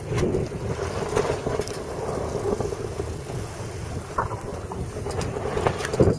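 Wind buffeting the microphone in uneven gusts aboard a sailboat under way, over the rush of water; the strongest gust comes near the end.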